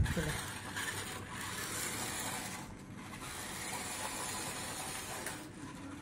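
Remote-control monster truck's small electric motors and gears whirring as it drives over dirt, easing off briefly a couple of times.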